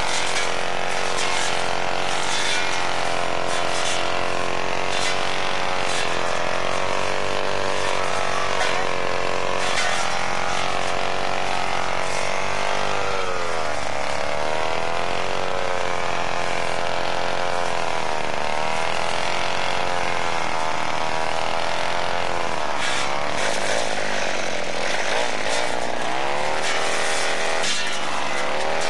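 Petrol brushcutter engine running continuously while cutting tall grass. Its pitch drops and climbs back several times as the throttle is eased and opened again.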